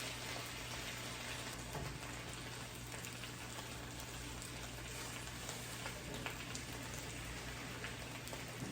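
Tofu frying in avocado oil and soy sauce in a pan, a steady sizzle.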